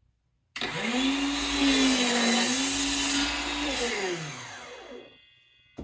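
DeWalt DCS361B 20 V cordless 7¼-inch sliding miter saw starting with a sudden rising whine, its pitch sagging briefly as the blade cuts through a piece of soft pine, then winding down once the trigger is let go. A short knock near the end.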